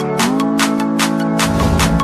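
Electronic background music with a steady beat of about four hits a second over held synth notes that slide down into each new chord.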